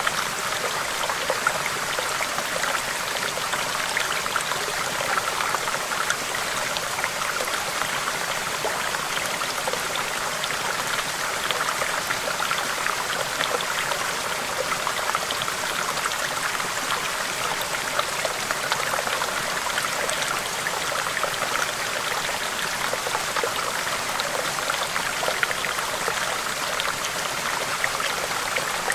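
Small stream babbling over rocks: a steady rush of flowing water dotted with many small splashes and droplet ticks.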